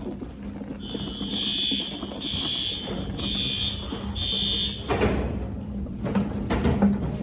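Fire alarm horn sounding four high-pitched pulsed blasts about a second apart, starting about a second in, during a fire alarm system test. A steady low hum runs underneath, and a few knocks follow the last blast.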